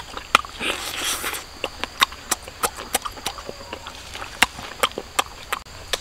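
A person eating cooked duck with the mouth close to the microphone: irregular wet smacks and clicks of chewing, several a second, with a short crunchy rustle about a second in.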